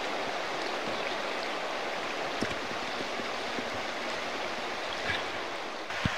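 Steady rush of fast, shallow river water running over rocks in a riffle of the Sevier River tailwater. Two brief knocks cut through it, one about midway and a louder one near the end.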